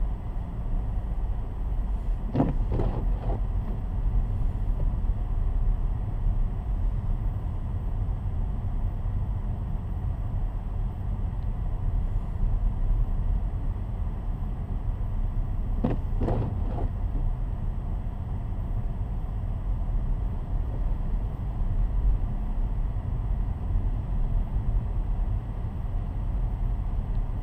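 Car driving along with a steady low road and tyre rumble. A brief, higher sound made of a few quick strokes cuts in twice, about two seconds in and again about halfway through.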